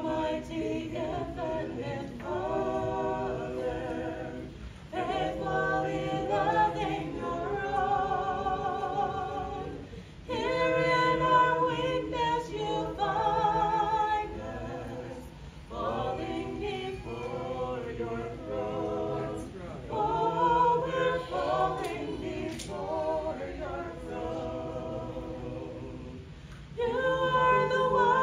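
Three voices, two female and one male, singing a sacred song together, unaccompanied. The phrases are separated by brief pauses for breath.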